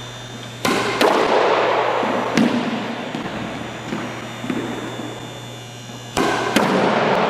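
Squash ball struck with a racquet and rebounding off the court walls: a few sharp knocks, each followed by an echo in the court, the loudest just under a second in and just after six seconds in.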